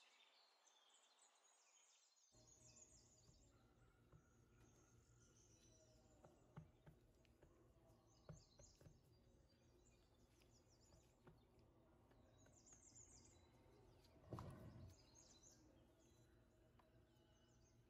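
Near silence: faint room tone with a low hum, scattered faint high chirps and small ticks, and one brief soft thud about three-quarters of the way through.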